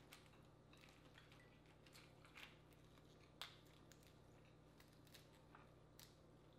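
Faint, scattered cracks and clicks of boiled crawfish shells being snapped and peeled apart by hand, the sharpest about three and a half seconds in.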